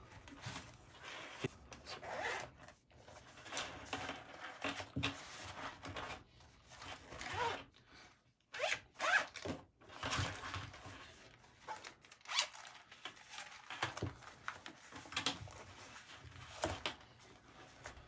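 Zipper on a 1000D Cordura nylon organiser pouch being run in a series of short irregular pulls, mixed with the scrape and rustle of the stiff nylon being handled and pushed at, with a brief pause about halfway through.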